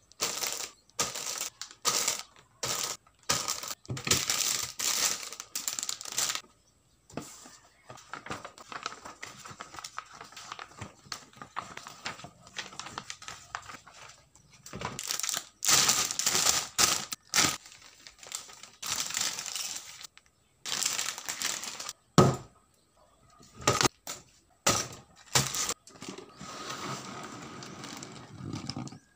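Plastic model kit packaging handled by hand: clear plastic bags of parts runners crinkling, paper instruction booklet rustling and cardboard box shuffled, in irregular bursts. A few sharp knocks come about three-quarters of the way through.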